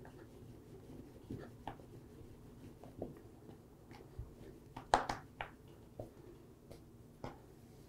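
Wooden rolling pin rolling dough on a floured wooden pastry board, with scattered soft knocks and taps as the pin and dough are handled; the loudest cluster of knocks comes about five seconds in. A faint steady hum lies underneath.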